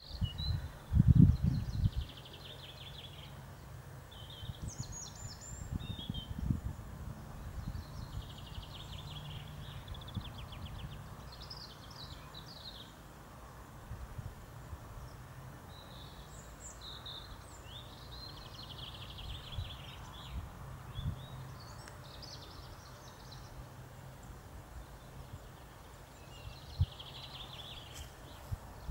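Small songbirds singing repeated short trilled phrases throughout, over a faint steady outdoor hiss. Low rumbles on the microphone about a second in and again around six seconds are the loudest sounds.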